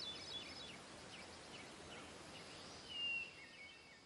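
Faint birdsong over a light outdoor hiss: short repeated chirps, with one clearer, falling call about three seconds in.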